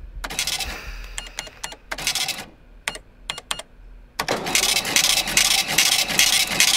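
Office machinery clatter: scattered sharp clicks, then from about four seconds in a dense, continuous mechanical rattle.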